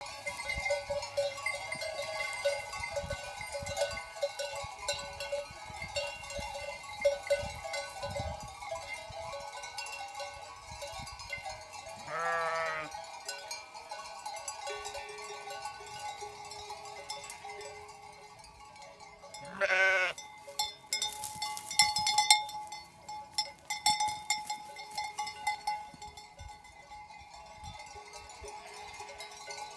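Bells on a grazing flock of sheep, clanking and tinkling continuously. A sheep bleats twice, about twelve seconds in and again about twenty seconds in.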